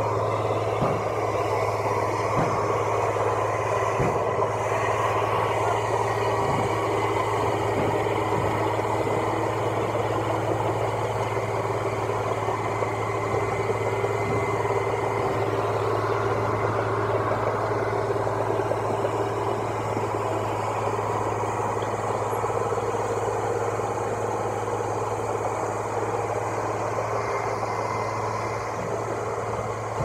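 Engine of a track-laying machine running steadily, a constant low hum with an even drone above it.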